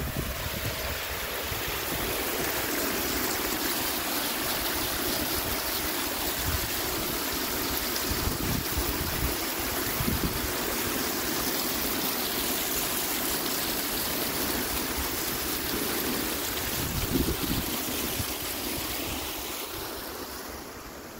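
Fountain's foaming water jets splashing into a stone basin: a steady rush of water that fades over the last couple of seconds.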